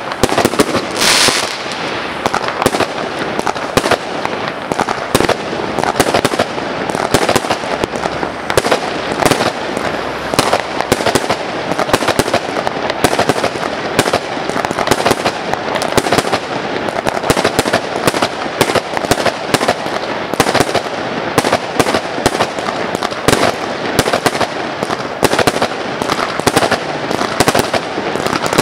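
Aerial fireworks bursting in a dense, unbroken run of bangs and cracks, several a second.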